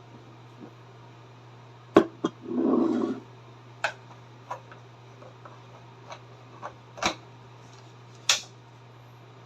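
Scattered sharp clicks and knocks of hard objects being handled, with a short rustling burst about two and a half seconds in, over a steady low hum.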